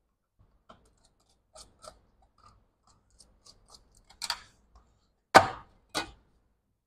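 Small scattered clicks and taps of a MacBook Air's back cover and small tools being handled, followed by three sharper knocks in the last three seconds, the second the loudest.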